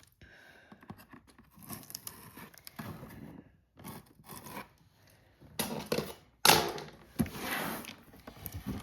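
Cardboard box being opened by hand: irregular bursts of tearing and rustling of cardboard and packaging, loudest a little past halfway.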